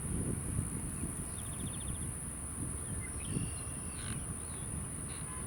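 Outdoor ambience: a steady high-pitched insect drone over a low rumble, with a few short bird chirps, including a quick rapid series about a second and a half in.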